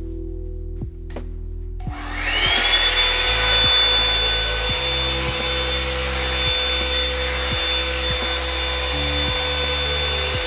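A blow dryer brush's motor and fan switch on about two seconds in, whine up to speed within half a second, and then run steadily with a rushing air hiss and a high whine. Background music plays underneath.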